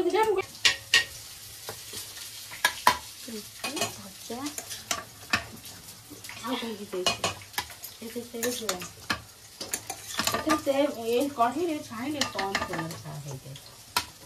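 Steel spoons clinking and scraping against stainless-steel plates and bowls, in sharp, irregular clinks.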